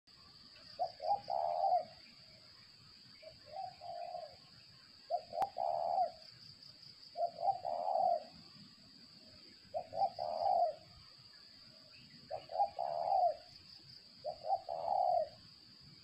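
Spotted dove (tekukur) cooing: seven phrases of a few low coos each, about two seconds apart, over a steady high-pitched hum.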